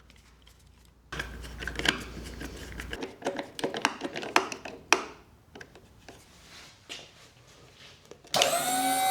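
Clicks and rattles of wire terminals being connected, then near the end a 12-volt electric hydraulic pump motor switches on with a steady high whine for about a second and winds down: the new switch working.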